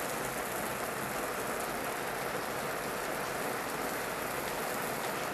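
Cluster beans (gavar) sizzling steadily as they stir-fry in hot oil in a frying pan.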